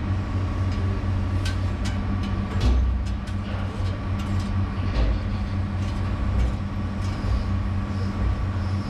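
Excavator diesel engine running steadily, heard from inside the cab, with a steady whine over the low hum as it lowers a steel trench-shoring panel. A few sharp knocks and thumps come about 1.5, 3 and 5 seconds in.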